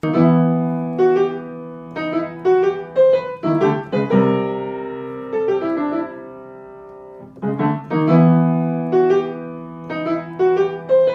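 Piano music: a tune of short notes played over held chords that slowly fade, with fresh chords struck about four seconds in and again near seven and a half seconds.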